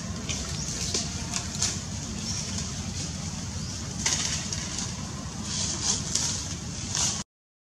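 Outdoor field ambience: a steady low rumble with scattered short rustles and crackles, fitting dry leaf litter. The sound cuts out completely for a moment near the end.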